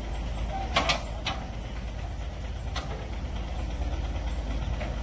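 An engine idling steadily with a low, even rumble, with a few sharp knocks, the loudest about a second in.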